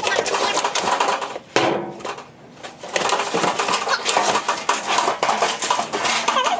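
Tin garbage cans clanking and rattling metal on metal as they are handled and set in place, with a brief lull about two seconds in.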